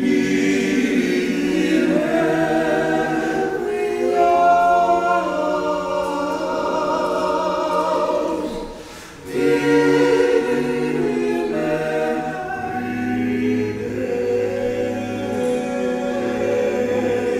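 Male a cappella quartet singing a gospel hymn in close harmony, holding sustained chords with no instruments. There is a short break for breath about nine seconds in, and a low bass part comes in a few seconds later.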